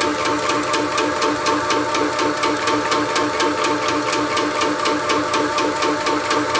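Shoebox air-intensifier compressor with its belt-drive upgrade, running and pumping into a high-pressure air bottle: a steady motor hum under a fast, even beat of piston strokes, about six a second. It runs significantly quieter on the belt drive than on the old chain drive.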